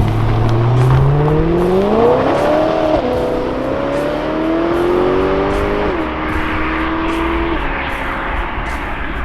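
BMW E92 M3's V8 accelerating hard, its pitch climbing, dropping at a quick dual-clutch upshift about three seconds in, climbing again to a second upshift about six seconds in, then holding steady and easing off near the end.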